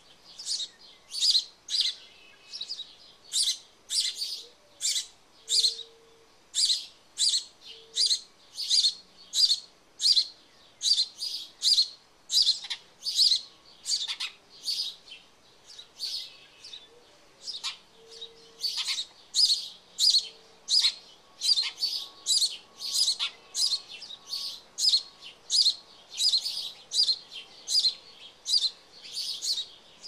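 House sparrows chirping at a nest box while an adult feeds its nestlings: a steady, rapid run of short, high, sharp chirps, nearly two a second, with a brief lull about halfway.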